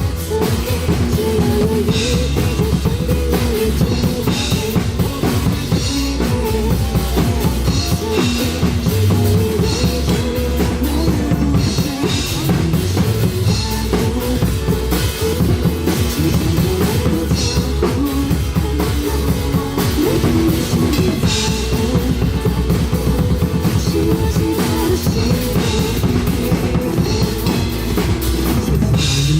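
Drum kit played continuously in a rock groove, with bass drum, snare and cymbals, over rock music carrying a pitched bass line and melody.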